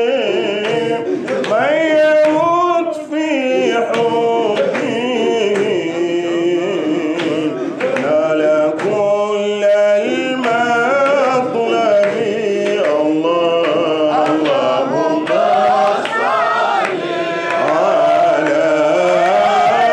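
A man's voice chanting Sufi dhikr through a microphone, a melodic salawat on the Prophet Muhammad, with percussion beating along.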